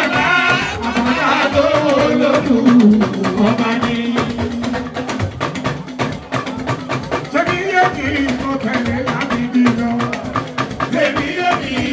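Live Fuji band music: dense, driving hand percussion and drums over a steady bass note, with a man's voice singing short phrases into the microphone now and then.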